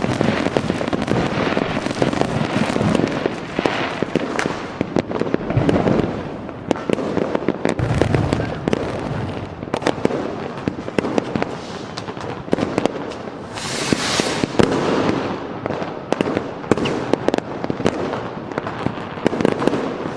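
Fireworks going off without a break: a dense run of bangs and crackles, with a brief hiss about two-thirds of the way through.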